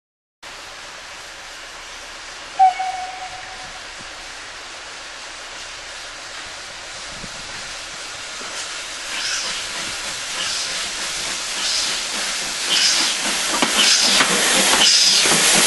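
Steam locomotive No 40 gives one short whistle toot about two and a half seconds in, over a steady hiss of steam. From about eight seconds its exhaust beats and the hiss of its cylinder steam come in at roughly one beat a second and grow louder as it draws near and passes, hauling works wagons.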